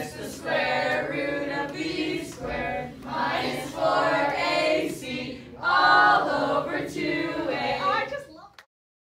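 A group of voices singing together in phrases, cut off abruptly near the end.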